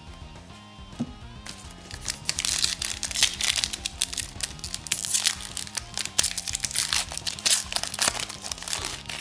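Foil wrapper of a Donruss basketball card pack crinkling and tearing as it is peeled open by hand: a dense run of crackles starting about a second and a half in. Faint background music underneath.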